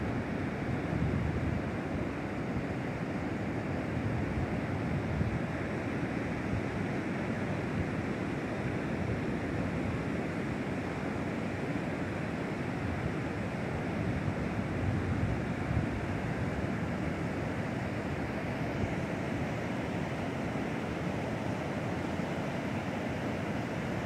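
Steady rushing of a fast creek running over stones into the sea, mixed with ocean surf.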